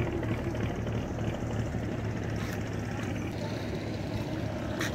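Small boat's motor running steadily under way, a constant low drone. A short click just before the end.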